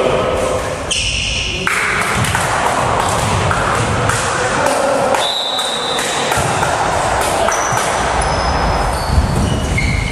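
Indoor volleyball play in a large gym hall: players' voices and calls echoing, with ball hits and thuds on the court.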